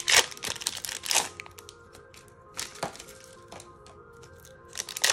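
Foil wrapper of a Pokémon trading-card booster pack crackling and tearing as it is opened and the cards are slid out, in a few sharp crinkles spread through. Quiet background music with steady tones plays underneath.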